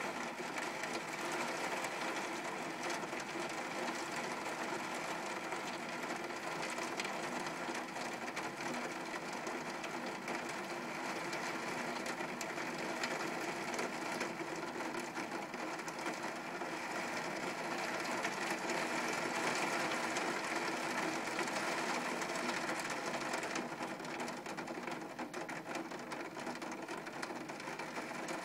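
Heavy rain falling steadily, an even dense hiss at a constant level.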